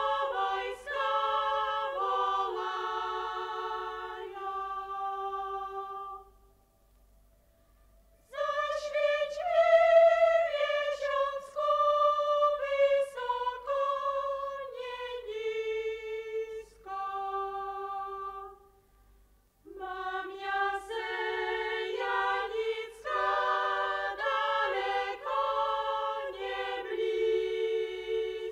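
A choir singing without accompaniment, in sung phrases with two short breaks between them.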